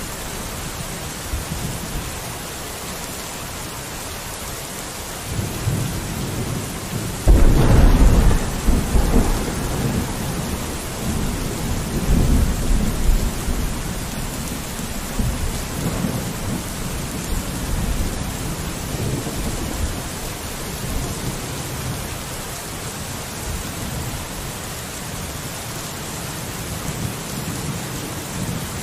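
Steady rain with a peal of thunder that breaks suddenly about seven seconds in and rolls on in low rumbles for several seconds more.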